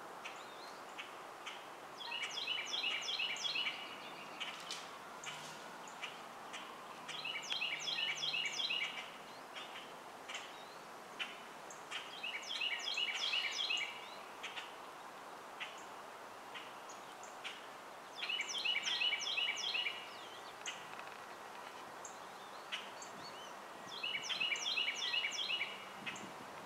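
Songbirds singing in spring woodland. One bird sings the same short song of rapidly repeated notes five times, about every five to six seconds, with scattered chirps from other birds in between.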